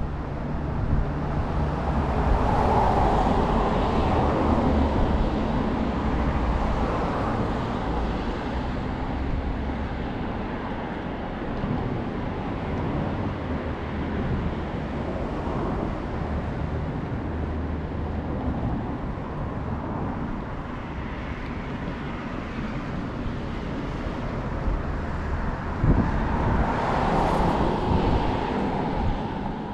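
Road traffic: cars passing on a street, their tyre and engine noise swelling about three seconds in and again near the end, over a steady low rumble. One sharp knock comes just before the second swell.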